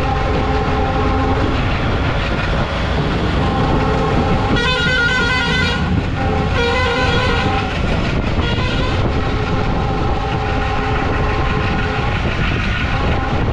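Passenger train running, heard from inside a general-class coach with the window open: steady running noise, with a horn sounding through much of it and two louder horn blasts about five and seven seconds in.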